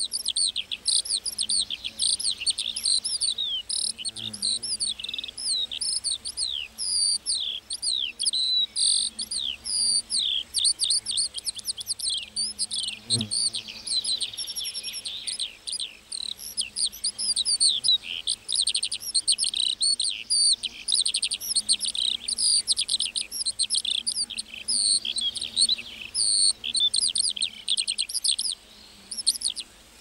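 A lark singing one long, unbroken stream of rapid high chirps and trills.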